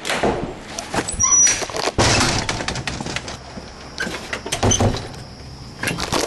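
A house door being opened and shut as someone walks out, with a series of knocks, clatters and footsteps and a brief squeak about a second in. A faint steady high tone comes in about halfway through.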